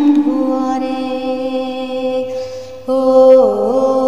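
A woman singing long, drawn-out notes with no clear words. About two and a half seconds in she breaks off briefly, then starts a new note with a quick dip and rise in pitch.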